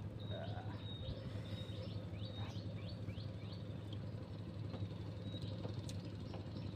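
A bird chirping repeatedly in short downward-sliding notes, over a steady low hum.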